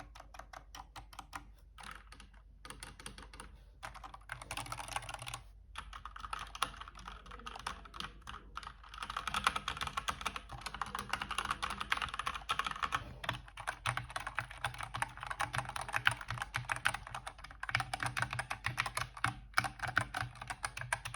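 Stock mechanical keyboard being typed on: a fast, continuous run of key clicks with a couple of brief pauses, getting busier and louder partway through.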